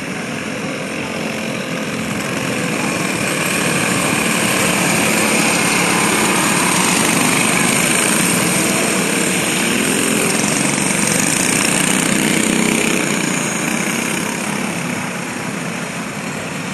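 Several dirt-track racing go-kart engines running as the karts circle the oval, a steady small-engine drone that swells in the middle as karts pass close by and then eases off.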